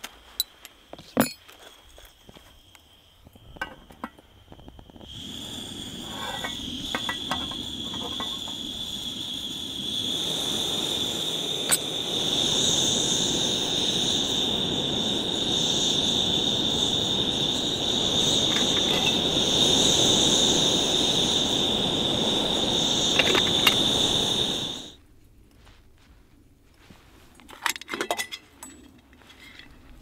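Sparks struck at the burner of an Optimus remote-canister gas stove, a few sharp scrapes, then about five seconds in the burner lights and runs with a steady rushing hiss and a high steady whine, getting louder as the flame is turned up. About 25 seconds in the stove is shut off suddenly, followed by a few light metal clinks of the pot.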